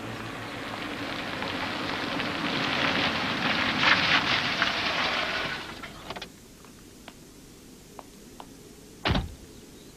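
Car pulling away, a rushing noise of tyres and engine that swells, peaks, and cuts off about six seconds in. A few faint clicks follow, then a single short thump near the end.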